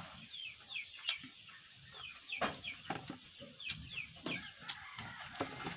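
Chickens clucking and peeping: many short, high, falling chirps repeating, with a few sharp knocks among them.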